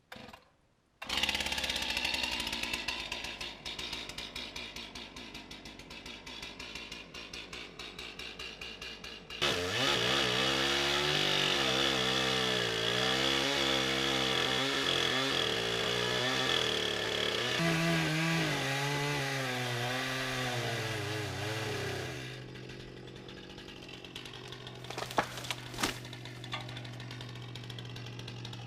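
Stihl chainsaw starting about a second in and running at part throttle, then revved hard from about nine seconds in as it cuts wood, its pitch dipping again and again as the chain bogs under load. Near the end it drops back to a steadier, quieter run, with a few sharp knocks.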